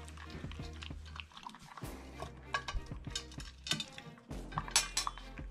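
Shiba Inu puppy eating from a stainless steel bowl: irregular clicks and clinks of its mouth and food against the metal, with chewing.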